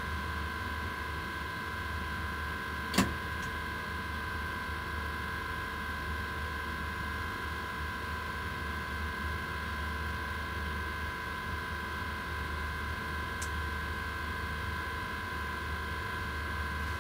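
Steady electrical hum inside the cab of an SNCF BB 27300 electric locomotive: a low drone with two steady high whining tones over it. A single sharp click about three seconds in.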